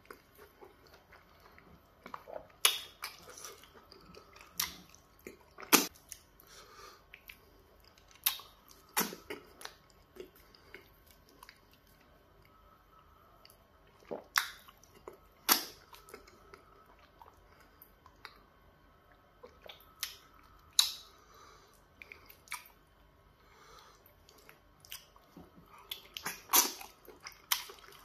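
A person chewing mouthfuls of pounded yam fufu with peanut butter soup, with sharp wet mouth smacks every second or two and a quick cluster of them near the end.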